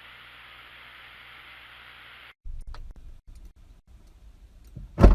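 Steady hiss that cuts off abruptly about two seconds in, followed by low rumble with scattered faint clicks and a single loud thump near the end.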